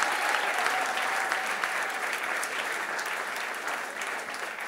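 Audience applauding, gradually dying down toward the end.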